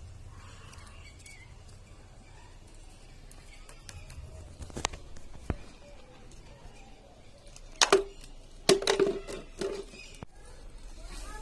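Handling of cardboard and craft tools: a few faint clicks, then a burst of sharp knocks and scraping about eight seconds in.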